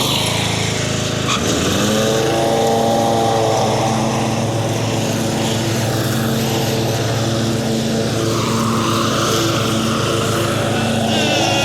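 Craftsman riding lawn mower's engine running, its pitch rising about a second in and then holding steady.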